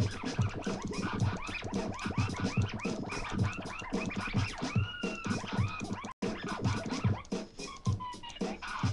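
Electronic music played on FL Studio (Fruity Loops) virtual turntables, with a sample being scratched over a steady low beat; the scratches come as quick rising and falling pitch sweeps. The sound cuts out for an instant about six seconds in.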